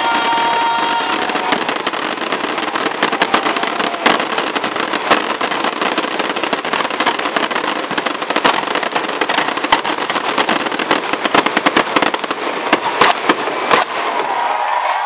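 Fireworks finale: a continuous barrage of shells bursting over the hiss and crackle of ground fountains, with rapid crackling reports thickest toward the end. The bangs stop about a second before the end.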